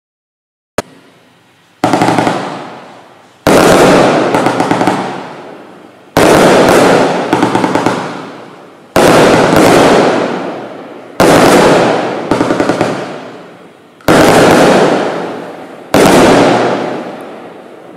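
Bright Star Xtreme 2604 Jaw Breaker 36-shot barrage cake firing. Volleys of sharp shots come every two to three seconds, about seven in all, and each trails off over a couple of seconds. A single sharp crack comes just under a second in, before the first volley.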